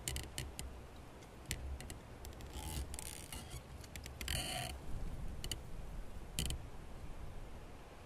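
Quiet outdoor ambience: scattered sharp little clicks and ticks, with short rustling bursts about two and a half seconds in, about four and a half seconds in, and again near six and a half seconds, over a low rumble.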